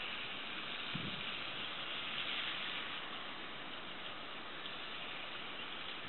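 Steady rushing wind, with a short low thump about a second in.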